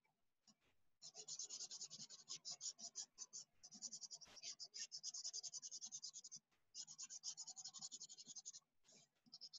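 Felt-tip marker scribbling back and forth on paper to colour in a small shape: quick, even scratchy strokes, several a second. The strokes start about a second in and come in runs broken by brief pauses.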